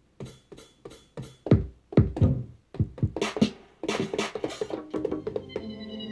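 Drum samples played one at a time as they are auditioned: single punchy hits with short silences between them, coming faster about four seconds in. Near the end a sustained synth tone comes in, with high notes sliding downward.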